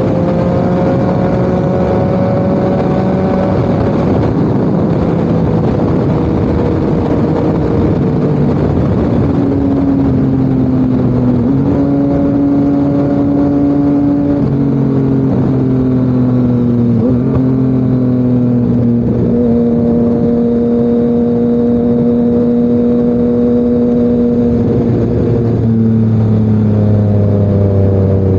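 Yamaha MT-09's crossplane inline-three running through an SC Project CRT exhaust on the move. The engine note holds fairly steady, with its pitch stepping up and down several times.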